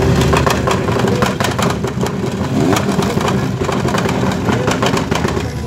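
A vehicle engine running and revving, its pitch rising and falling, with rapid irregular crackling over it.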